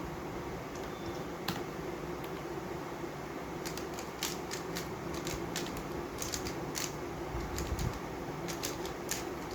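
Sharp clicks and clacks of a MoYu WRM V10 Ball-Core UV magnetic speedcube's layers being turned in a fast solve. A few isolated clicks come first, then a dense run of turns from about four seconds in.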